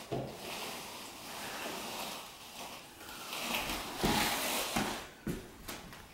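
A replacement window frame being lifted out of its opening: rustling and scraping as the frame slides against the jamb, with several sharp knocks in the last couple of seconds as it comes free.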